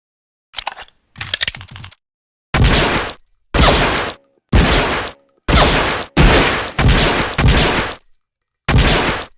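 Colt M1911A1 pistol: a few faint metallic clicks of handling, then a string of about seven single shots roughly a second apart, each with a short echoing tail.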